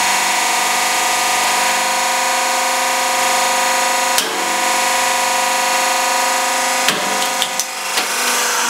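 Hydraulic press running steadily as its ram crushes a glitter-filled plastic bottle, with a sharp crack about four seconds in and a quick cluster of cracks and pops near the end as the bottle gives way and bursts.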